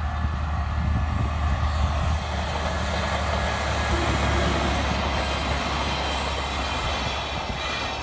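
DE10 diesel-hydraulic locomotive passing close by with its engine running as a low drone, followed by old passenger coaches rolling over the rails, the wheel and track noise swelling through the middle.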